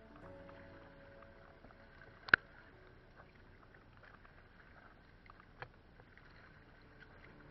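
Faint water lapping and dripping around a plastic sit-on-top kayak being paddled on the sea, with one sharp click about two seconds in and a smaller one a little past halfway.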